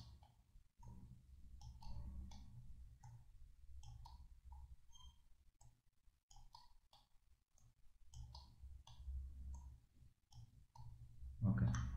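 Scattered, irregular clicks from a computer mouse and keyboard in use, with faint low background noise.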